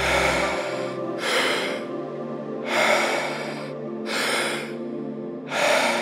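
Deep, paced guided breathing: about five rushing breaths, inhales and exhales in turn, each lasting under a second. Underneath runs a steady ambient music drone.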